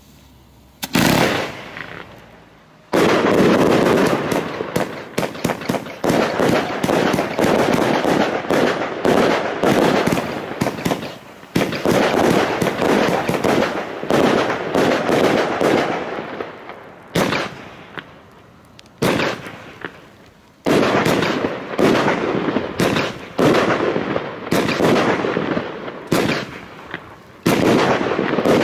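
Nordlicht Feuerwerk 'Die Hand Gottes' 239-shot 1.3G firework compound in a steel cage, firing. A single shot about a second in, then from about three seconds a rapid barrage of launches and bursts that comes in waves with a few brief lulls.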